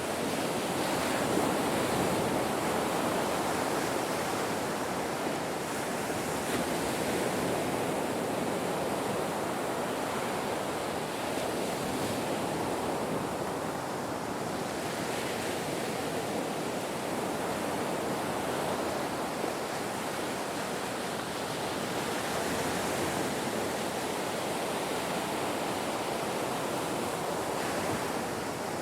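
Ocean surf washing on a shore: a continuous rush of breaking waves that swells and eases slightly in loudness.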